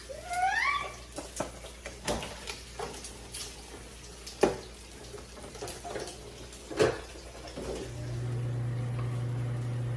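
Cooking utensil knocking and scraping against a pan several times, with a short rising squeak in the first second. A low steady appliance hum starts near the end.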